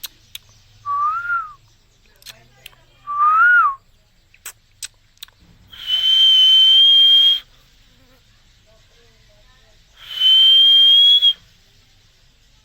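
Green parrot whistling: two short notes that rise and fall, then two loud, long, steady high whistles with a raspy edge.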